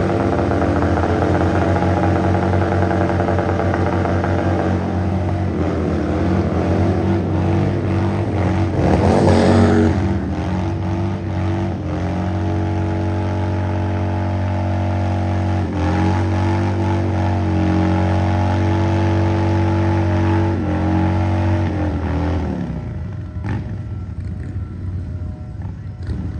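Harley-Davidson V-twin motorcycle engine held at high revs through a burnout, the rear tyre spinning in place; the revs dip and climb again a few times, with one sharp rev about nine seconds in, and the engine drops away near the end.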